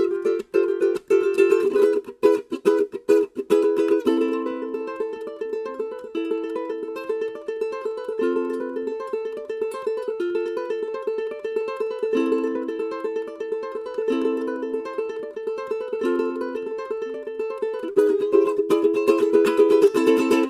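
Adela ukulele being played: fast strummed chords for about four seconds, then a picked melody over ringing chords, then strumming again near the end before it cuts off suddenly.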